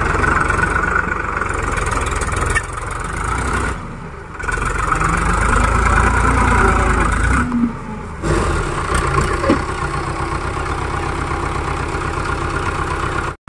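Farm tractor's diesel engine running steadily under load while hauling a loaded tipping trailer. The sound changes abruptly twice, at about four and eight seconds in.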